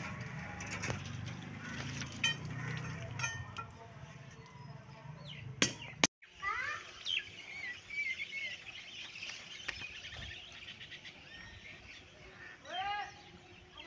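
Water from a cast-iron hand pump splashing, with a few sharp metallic clicks, for the first six seconds. After a brief dropout, birds chirp repeatedly.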